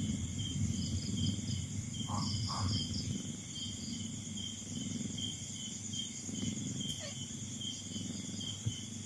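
Night-time crickets chirping: a steady high trill with short, rhythmic chirps about two to three a second, over an uneven low rumble.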